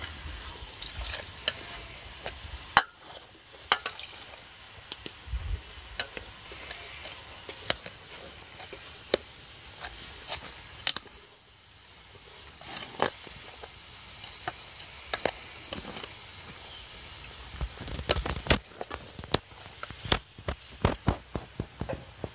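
A ladle with a wooden handle and a dark round bowl, stirring cooked sticky rice in an enamel basin as coconut milk is worked in. It makes irregular light clicks and knocks against the basin and the rice, coming thicker near the end.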